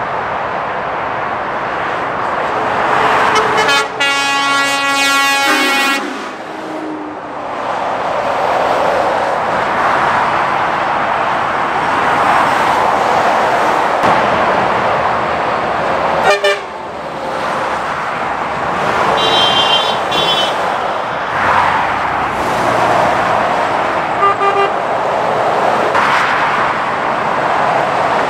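Motorway traffic of lorries and cars, tyre and engine noise swelling and fading as each vehicle passes. About four seconds in, a vehicle horn sounds for about two seconds, and short higher-pitched toots follow near twenty seconds in.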